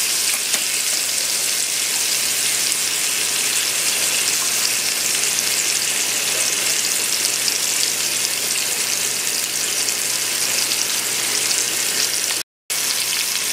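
Two thick pork chops sizzling in butter in an Instant Pot's stainless inner pot on the sauté setting: a steady frying hiss. It is broken once, near the end, by a brief moment of silence.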